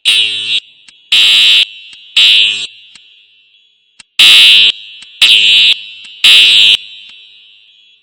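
Building fire alarm horns sounding the temporal-three evacuation pattern: three half-second blasts, a pause of about a second and a half, then three more. Each blast echoes and fades slowly in the large space.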